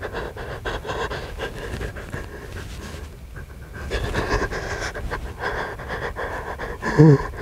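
A person breathing heavily. A short low vocal sound near the end is the loudest moment.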